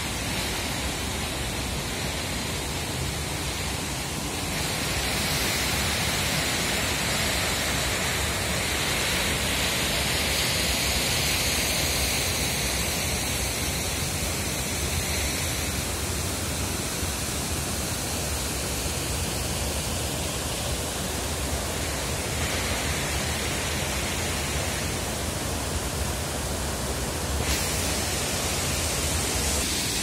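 Steady rush of water from a waterfall and the rocky river below it, a little louder after about five seconds.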